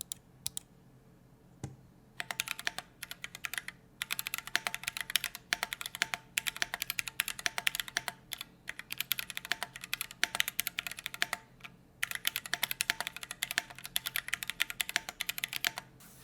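Fast typing on a Keychron Q1 aluminium-case mechanical keyboard with Gateron Yellow linear switches, unmodified: a few single keystrokes, then rapid runs of key clacks in bursts of about two seconds with brief pauses between.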